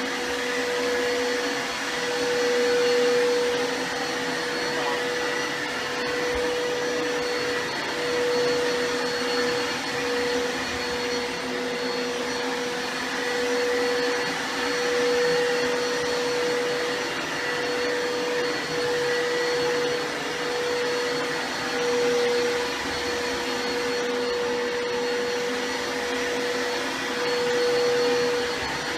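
Vacuum cleaner motor running continuously with a steady whine over a rushing hiss, its loudness swelling and easing every few seconds.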